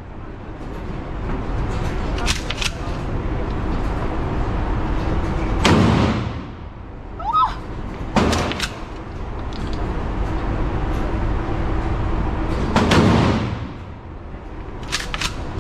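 Gunshots echoing in an indoor shooting range: three loud shots about 6, 8 and 13 seconds in, each with a long reverberant tail. Lighter metallic clacks come a couple of seconds in and near the end, over a steady low background rumble.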